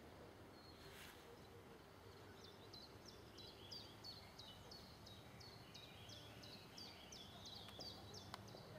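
Faint bird song: a run of short, high, downward-slurred chirps repeating about twice a second, starting about two seconds in, over a low background hiss.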